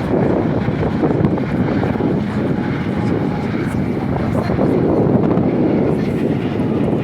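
Strong wind buffeting the microphone: a loud, gusting rumble.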